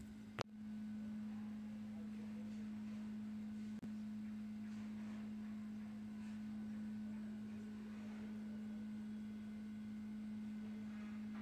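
A steady low hum held at one pitch, with a sharp click about half a second in.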